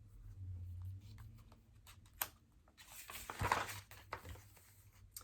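A picture book's page being turned: a sharp click about two seconds in, then a short paper rustle a second later.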